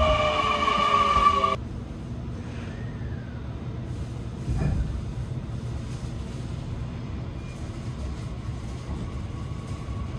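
Inside a JR 817-series electric train: a whine of several tones, some sliding slowly downward, cuts off abruptly about a second and a half in. A low steady rumble follows, with one thump a few seconds later.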